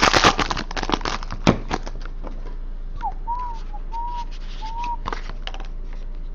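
Plastic wrapping crinkling and crackling for about two seconds, then a person whistling a few short, wavering notes.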